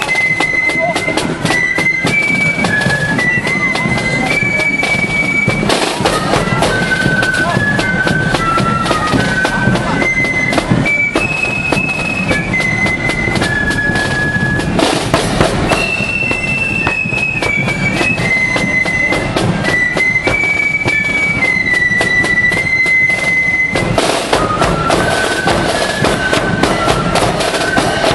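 Marching flute band playing a tune, the flutes in unison on a high, shrill melody over constant snare drum beats, with bass drum and clashing cymbals.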